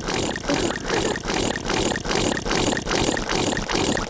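The Tubby Custard machine running in a steady, even rhythm while pink custard pours from its spout into a bowl.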